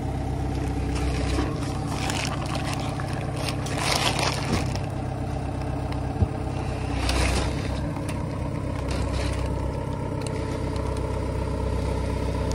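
Forklift engine running steadily while its forks lift a bundle of pine boards off a truck bed, with scraping as the wrapped bundle shifts a few seconds in and again near the middle, and one short knock.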